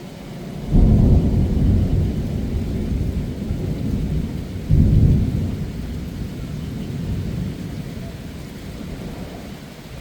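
Thunder: a sudden crash under a second in that rolls on as a low rumble, a second loud peal about five seconds in, then a long rumble fading away, over steady heavy rain.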